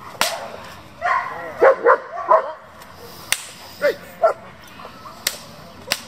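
German shepherd barking in short barks, several bunched together, while biting and pulling on a helper's padded bite sleeve in protection training. Several sharp cracks ring out between the barks.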